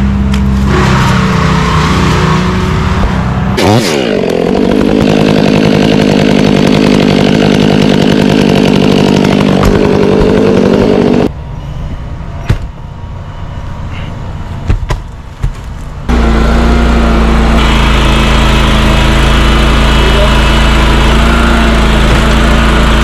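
Small gasoline engines of tree-work power equipment running hard, with a chainsaw engine at high revs. The pitch shifts about four seconds in. The engine falls away a little past the middle to a quieter stretch with a few knocks, then a deeper, steady engine drone takes over for the last seven seconds.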